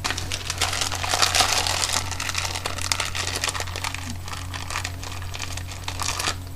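Close-miked crinkling and crunching, a dense run of rapid crackles, made as the sound of eating cake.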